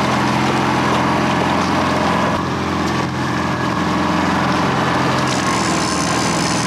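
Boat's outboard motor running steadily, a low even engine hum.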